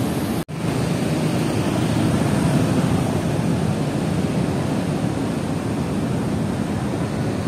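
Steady rushing of turbulent water churning in the Indus just below Tarbela Dam, with a brief dropout about half a second in.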